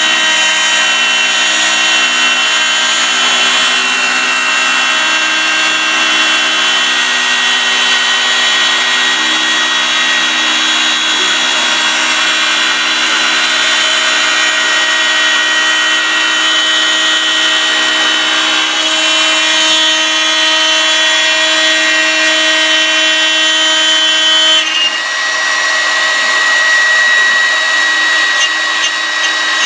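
CNC router spindle running at high speed with its cutter routing a groove in a plywood sheet: a steady whine of several held tones over dense cutting noise. The tones shift in pitch twice in the last third as the cut changes.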